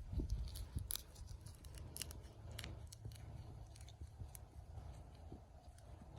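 Scissors snipping bottlebrush stems: several short, sharp snips at irregular intervals over a low steady rumble.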